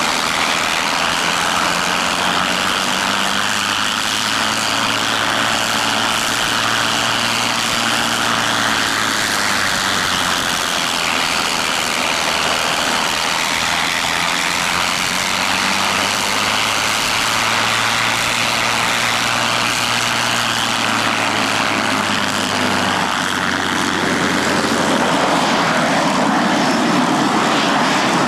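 P-51D Mustang's Packard Merlin V12 engine idling on the ground, a steady propeller-driven drone whose pitch slowly wavers. It grows a little louder near the end as the aircraft turns to taxi.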